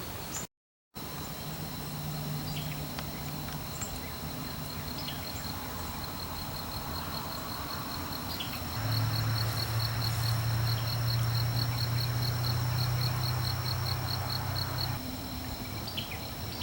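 Insects chirping in the woods, a steady high pulsing trill of about three pulses a second over a continuous high whine. About nine seconds in, a low steady hum joins and becomes the loudest sound, stopping shortly before the end.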